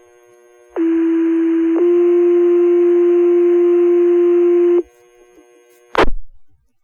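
Two-tone sequential paging tones over a fire dispatch radio. A steady low tone lasts about a second, then a slightly higher tone is held for about three seconds: the alert that sets off the volunteer firefighters' pagers, sent here as a test page. A short crackle of radio static follows about six seconds in.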